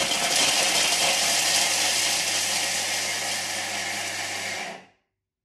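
Thermomix TM6 blades spinning at high speed, grinding chunks of parmesan into grated cheese: a loud, steady whirr that slowly eases as the cheese breaks down, then cuts off suddenly near the end. The machine is stopped once its sound shows that the cheese is finely grated.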